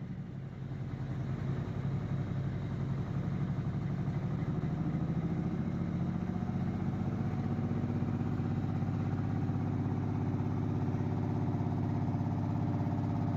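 A large diesel engine of a parked classic coach bus idling steadily, getting a little louder over the first few seconds and then holding even.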